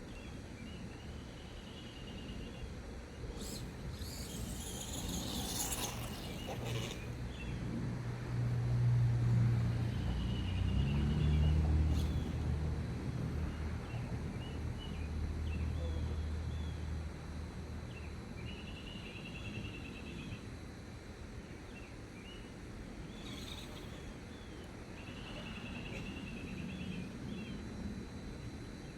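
Outdoor ambience with birds chirping in short trills now and then, a low drone that swells and fades in the middle, and two brief bursts of hissing noise.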